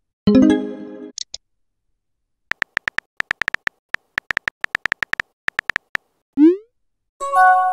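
Messaging-app sound effects: a short synthesized chime just after the start, then a run of quick keyboard taps as a message is typed. About six and a half seconds in comes a short rising swoosh as the message is sent, followed near the end by another synthesized chime of several steady tones.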